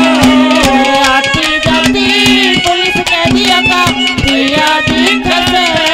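Live Haryanvi ragni music: a steady held melody over fast, continuous hand-drum strokes, played between the singer's sung lines.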